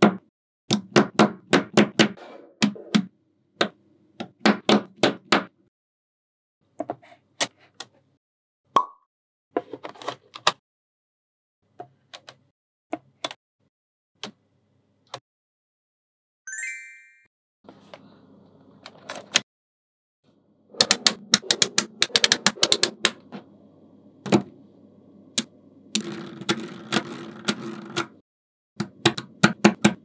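Small neodymium magnetic balls clicking and snapping together in quick runs of sharp clicks, with pauses between the runs. A short high ringing sound comes about sixteen seconds in.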